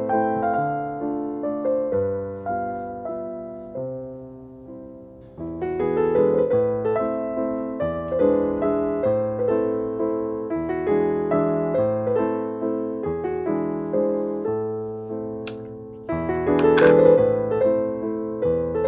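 Background music: soft electric piano playing slow sustained chords. It thins out and fades around four seconds in and fills out again from about five and a half seconds. Two short noises cut in about three seconds before the end.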